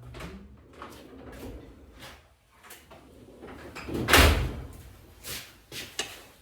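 Metal parts and hand tools knocking and clattering during a transfer case teardown: a string of separate knocks, the loudest a heavy thump about four seconds in.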